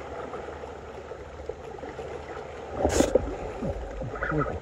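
Small waves lapping and sloshing against shoreline rocks. About three seconds in comes a sharp knock, then rustling handling noise as the fishing rod is grabbed and the spinning reel is worked on a hooked fish.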